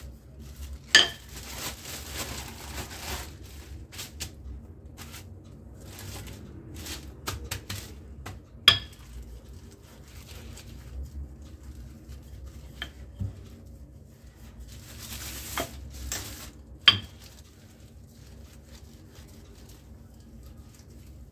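Wooden rolling pin rolling dough out between sheets of plastic wrap on a stone countertop: rustling of the plastic under the strokes, with three sharp knocks, about a second in, near the middle, and about three quarters through.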